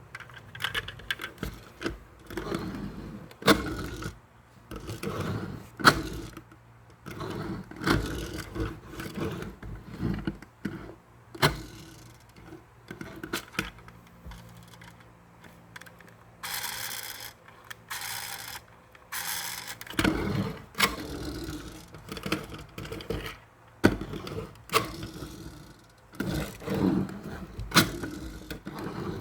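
Hands handling a diecast model car and its packaging: irregular clicks, taps and scrapes of metal and plastic, with three short bursts of rustling about two-thirds of the way through.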